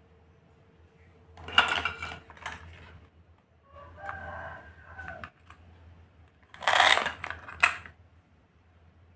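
Plastic toy food being handled: clacks and rustling of plastic pieces about a second and a half in, then near the end a loud rasping tear of hook-and-loop fastener as a toy cabbage is cut apart into its two halves with a plastic knife, finishing with a click.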